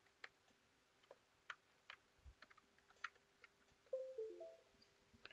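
Faint, scattered clicks of a USB plug, cables and laptop touchpad being handled, then about four seconds in a short electronic chime of a few stepped notes from the laptop: the device-connected sound as the USB borescope camera is plugged in.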